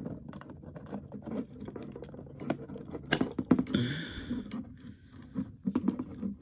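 Hard plastic parts of a transforming robot toy figure clicking and rattling as its joints and panels are pulled out and moved by hand, with one sharp click about three seconds in.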